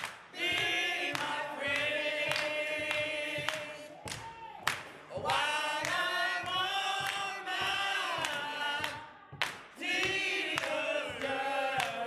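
A small group of women and men singing together unaccompanied in sung lines, with short breaths between phrases about four and nine seconds in. Hand clapping keeps the beat about twice a second.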